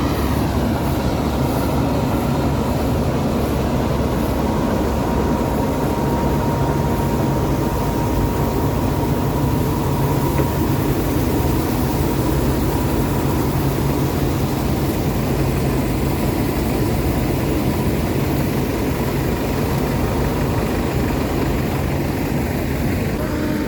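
Rice combine harvester's engine running steadily under load while the machine unloads threshed paddy from its full grain tank.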